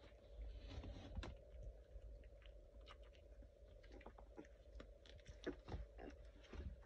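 Eighteen-day-old Labrador puppies mouthing and chewing on one another, making faint wet smacks and scattered light clicks at an irregular pace.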